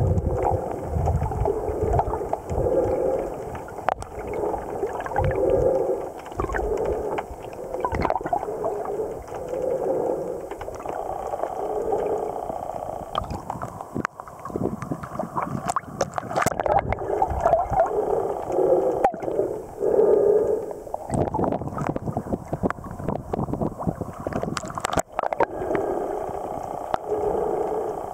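Muffled water sound picked up by a camera moving underwater: sloshing and rushing that swells every two to three seconds, with scattered sharp clicks. About halfway through there is a burst of splashing and crackling as the camera breaks the surface.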